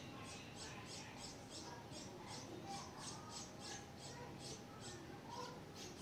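Red-whiskered bulbul nestlings begging at the nest: a rapid string of thin, high-pitched cheeps, about three a second, as the adult feeds them. A few lower chirps come in between.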